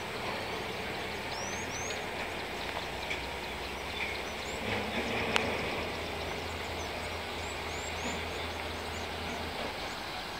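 Riverside outdoor ambience: a steady low engine hum with small birds chirping a few times, and a single sharp click about five seconds in.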